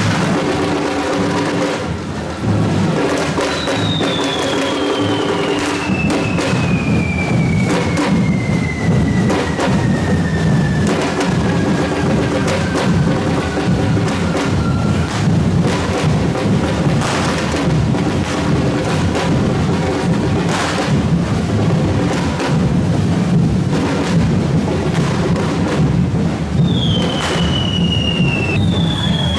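Drum group playing a steady, continuous beat. A long whistle falls slowly in pitch from a few seconds in, and two shorter falling whistles come near the end, typical of the whistling fireworks of a correfoc.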